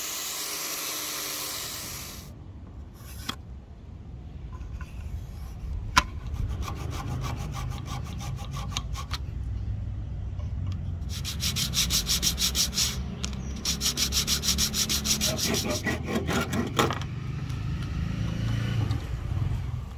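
Hand tool working padauk wood in quick back-and-forth strokes, in several runs of rapid rasping strokes. A steady hiss at the start stops after about two seconds, and there is a sharp click about six seconds in.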